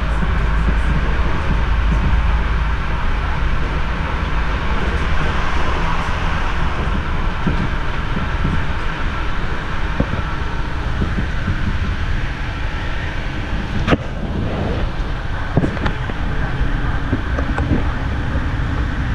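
Electric passenger train running at speed, heard from inside the carriage: a steady low rumble with wheel-on-rail noise. A sharp knock comes about two-thirds of the way through, with a fainter one just after.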